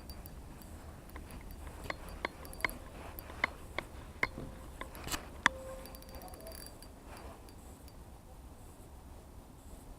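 Small spinning reel handled and cranked: a run of sharp, irregular mechanical clicks over a few seconds, the loudest about five and a half seconds in, followed by a brief faint hum.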